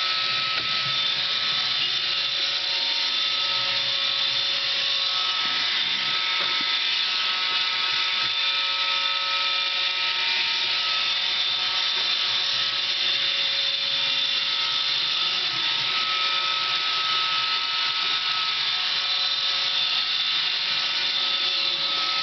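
iRobot Roomba 550 robot vacuum running: a steady motor whine with several held tones over a hiss, heard close up from on board the machine.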